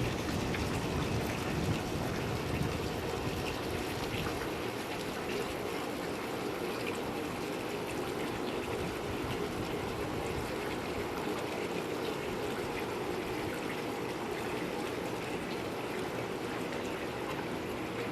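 Steady rushing and trickling of moving water, with a little more low rumble in the first few seconds.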